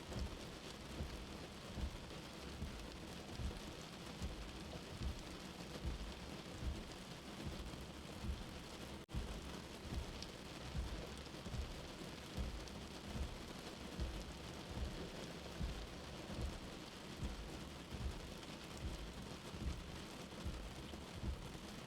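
Steady rain hiss with a slow, soft heartbeat thumping low underneath at a regular pace, about once a second. There is a momentary dropout about nine seconds in.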